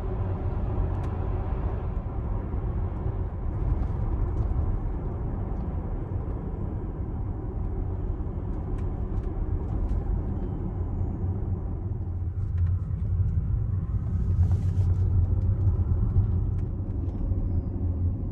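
Steady low road and tyre rumble inside a Tesla's cabin as it drives, with only faint motor sound and a few light clicks.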